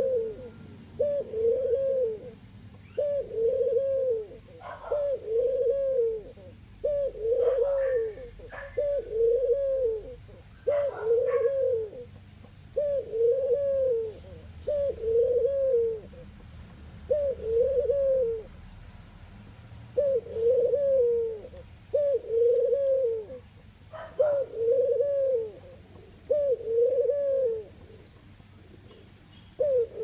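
Ringneck dove cooing: short, arched, low coos repeated about once a second in long runs broken by brief pauses.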